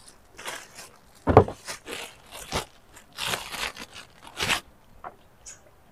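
Clear plastic packaging crinkling and rustling in irregular bursts as it is handled, with one louder dull thump about a second in.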